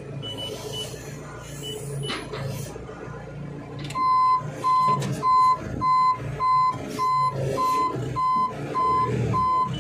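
Reverse alarm of a construction machine fitted with pallet forks, beeping steadily a little over twice a second from about four seconds in, heard from the cab over the machine's running engine.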